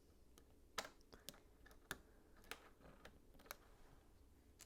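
Faint, irregular light clicks, about ten sharp ones spread over four seconds against a quiet background.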